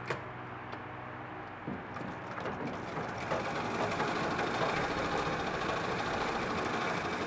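Circa-1948 Singer 103K sewing machine worked by its foot treadle, stitching. It starts slowly, then picks up from about two seconds in to a fast, steady run.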